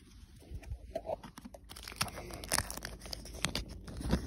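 Trading cards and cardboard being handled: rustling and scraping paper-card sounds with irregular clicks and knocks, getting busier from about a second in.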